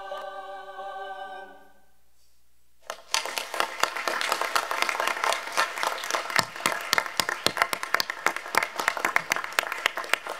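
A chamber choir holds its final chord, which fades out about two seconds in; after a short hush, the audience breaks into sustained applause.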